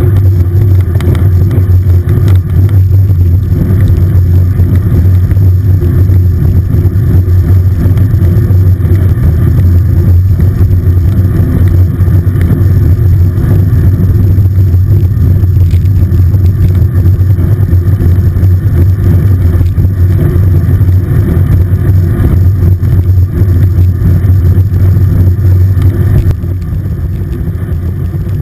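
Steady low wind roar and road rumble on a bicycle handlebar-mounted action camera as the road bike rolls along at speed. It drops noticeably in level near the end.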